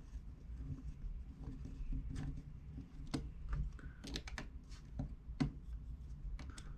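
Light, irregular clicks and taps of tiny screws being sorted through by hand on a repair bench, busiest in the second half, over a low steady hum.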